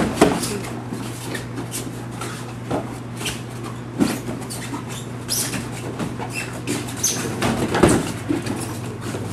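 Boxing sparring: dull thuds of gloved punches and footwork, with shoes squeaking and shuffling on the gym mats. The thuds come at irregular intervals, the loudest near the start and around four and eight seconds in, over a steady low hum.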